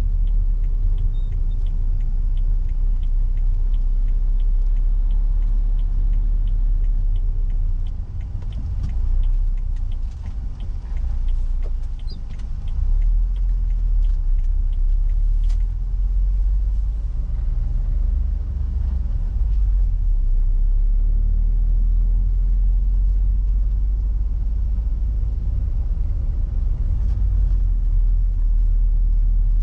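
Peugeot 406 car driving on the road: a steady low engine and road rumble that eases briefly about eight to eleven seconds in. Faint regular ticking runs through the first half, and a horn starts right at the very end.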